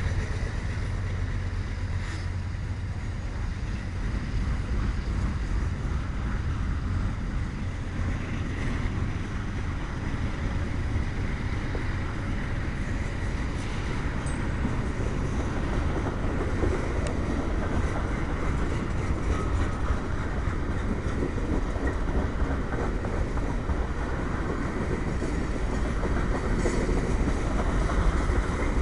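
Norfolk Southern freight cars, centerbeam flatcars then boxcars and tank cars, rolling past close by: a steady rumble of steel wheels on the rails, with a few faint clacks.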